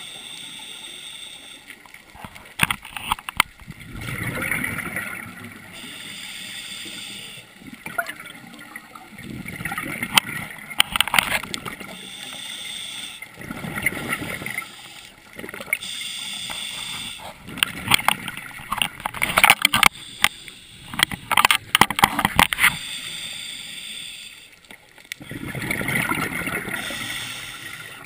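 Scuba regulator breathing underwater: a hissing inhale alternating with a gurgling rush of exhaled bubbles, about every five or six seconds, the bubble bursts full of sharp crackling clicks.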